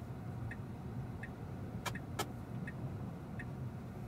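Tesla Model 3's turn-signal indicator ticking about once every 0.7 seconds inside the stopped car's cabin, over a low steady hum. Two sharp clicks come about two seconds in.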